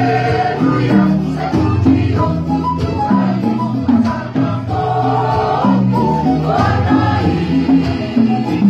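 Mixed choir of women and men singing together, sustained sung lines from several voice parts at once.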